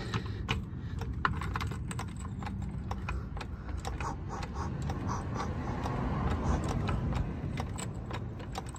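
Car jack being worked under the front of the car: a run of metallic clicks and rattles, uneven in spacing, over a low rumble.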